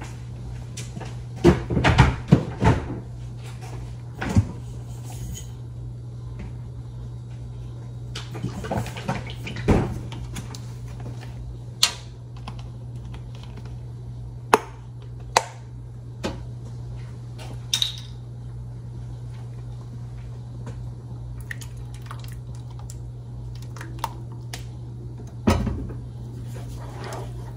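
Kitchen handling sounds: scattered clicks and knocks of cookware and a carton of heavy whipping cream being handled, loudest in a cluster in the first few seconds, over a steady low hum.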